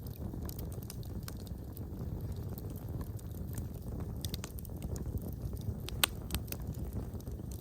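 Wood fire crackling in a fireplace: a steady low rush of flames with scattered sharp pops and snaps. The loudest pop comes about six seconds in.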